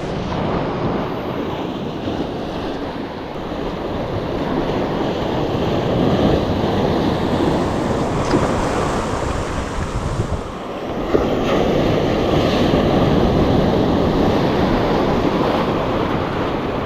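Wind buffeting the microphone over breaking surf: a loud, steady rushing noise that swells and eases, with brief lulls.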